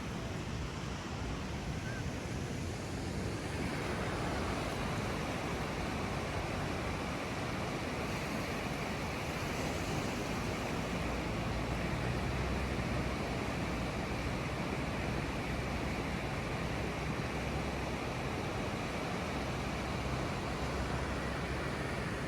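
Ocean surf washing onto the beach, with wind on the microphone: a steady rushing noise that grows a little fuller about three and a half seconds in.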